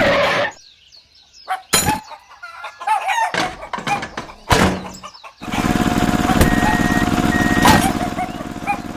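A small motor runs steadily, cuts out about half a second in, and starts again about five and a half seconds in. In the quieter gap come a few sharp clicks and short chirping calls.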